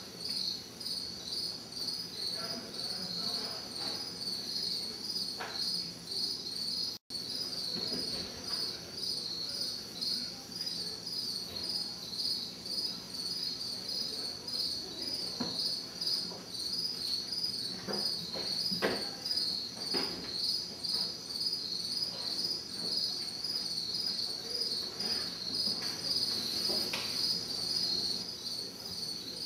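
Crickets chirping in a fast, even pulse that never lets up, over a faint low hum of distant traffic. A few soft knocks come in the second half, and the sound cuts out for an instant about seven seconds in.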